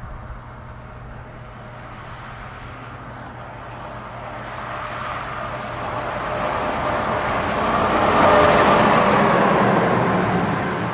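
A heavy truck (semi-trailer) approaching and passing at highway speed, its engine and tyre noise building to a peak about eight seconds in, then fading as it moves away.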